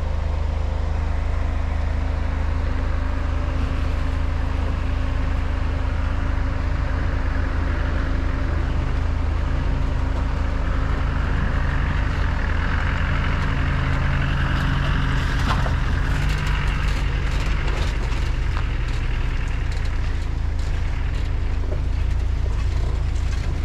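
Lifted Jeep Wrangler JLU Rubicon driving off-road: a steady low engine and drivetrain rumble that rises a little about halfway, with scattered knocks and rattles in the later part.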